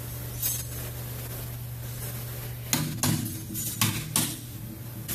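Hand tools and metal engine parts clinking and clanking while an engine block is taken apart, with several sharp metallic knocks in the second half over a steady low hum.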